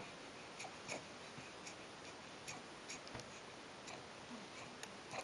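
Quiet room hiss with faint, irregularly spaced small clicks, roughly one or two a second.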